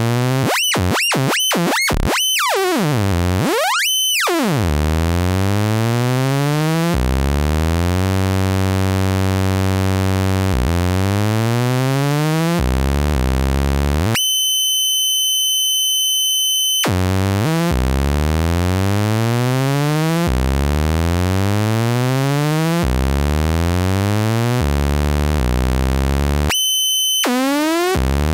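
Software synthesizer oscillator tone from a simulated littleBits Korg oscillator and speaker: a buzzy tone whose pitch keeps gliding up and down and jumping in steps, stepped by counter, divide and plus modules. There are a few fast up-and-down sweeps in the first seconds, a steady high whistling tone for a few seconds around the middle, and another brief one near the end.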